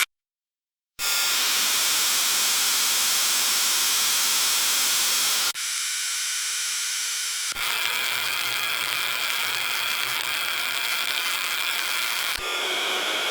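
Marine radio static: after about a second of silence, a loud, even hiss that switches texture abruptly a few times. A stretch of about two seconds near the middle is thinner, and the later part carries a faint low hum.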